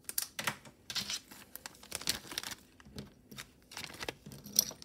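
Plastic packaging crinkling and rustling as it is handled, with irregular light clicks and taps.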